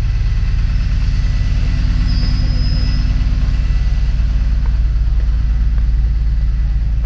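Bus engine idling: a steady low rumble with a fine even pulse. A faint high tone sounds briefly about two seconds in.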